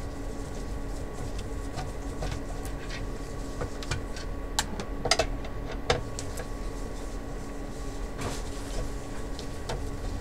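Screwdriver working a screw in the plastic back of an LCD monitor, with a few sharp clicks and taps about halfway through, over a steady electrical hum.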